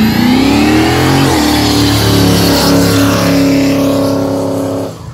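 Car engine revving up over about a second, then held at high revs with a loud hiss over it, before dropping off sharply near the end.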